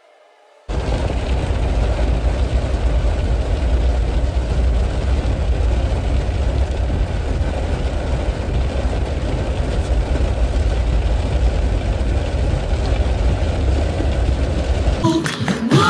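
Steady car-cabin noise of a car in the rain: a deep, even rumble with a hiss over it, starting suddenly about a second in and giving way to music near the end.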